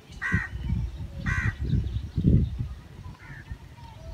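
A crow cawing twice, two short harsh calls about a second apart, over a low rumble of wind on the microphone.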